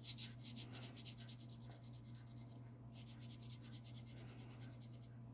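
Faint scratching of a stiff bristle brush scrubbing gouache onto watercolour paper in quick, even short strokes, several a second; the strokes stop briefly about three seconds in, then carry on.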